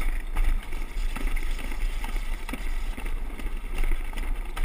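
Alpine slide sled running fast down its track: a steady rumble, with wind buffeting the camera's microphone.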